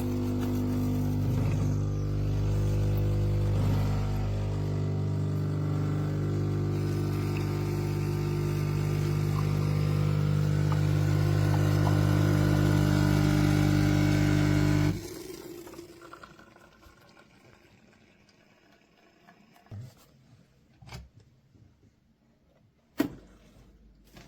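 Philips Baristina espresso machine running with a steady, loud hum for about fifteen seconds, then stopping abruptly. A few faint clicks follow.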